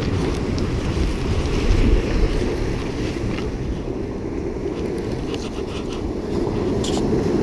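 Wind buffeting the microphone over the steady wash of surf breaking on jetty rocks, with a few faint clicks partway through and near the end.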